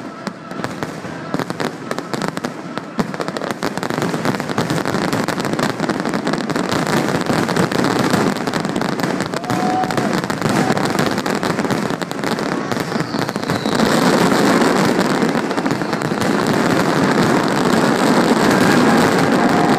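Fireworks display: a dense, rapid barrage of aerial shell bursts and crackling, growing louder about two-thirds of the way through.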